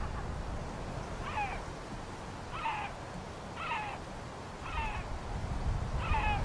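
An animal giving five short mewing calls about a second apart, each falling in pitch, over a steady low rumble.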